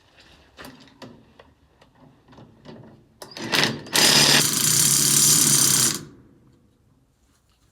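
Impact gun with a socket running on a nut, hammering rapidly: two short trigger blips, then a steady run of about two seconds that stops sharply. Before it, light clinks and knocks of metal parts being handled.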